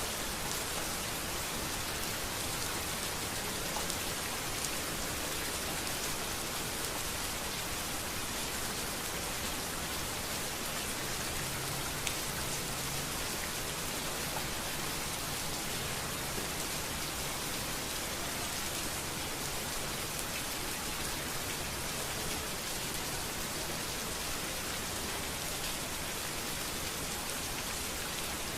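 Steady rain falling on a street: an even hiss with scattered drop ticks.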